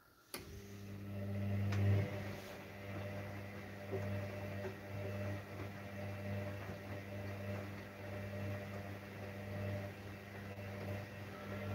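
Gorenje front-loading washing machine starting up with a click, then its drum motor running with a steady low hum that swells over the first couple of seconds, as the drum tumbles a heavily overloaded dark wash.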